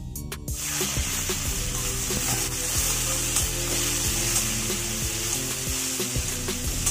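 Chopped tomatoes hitting hot oil and onions in a kadai, starting to sizzle about half a second in and sizzling steadily after. A steel spatula scrapes and clicks against the pan as the mixture is stirred.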